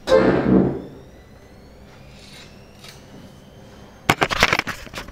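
A short loud sound at the start that dies away within a second, then a low hum. From about four seconds in comes a rapid, crackling run of handling noise as a hand rubs and fumbles against the camera's microphone.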